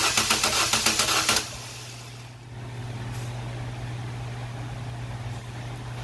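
Starter motor cranking a Nissan HR15 four-cylinder engine with a compression gauge in cylinder two, a fast, even chugging that stops about a second and a half in, the gauge holding near 180 psi. A steady low hum continues after the cranking stops.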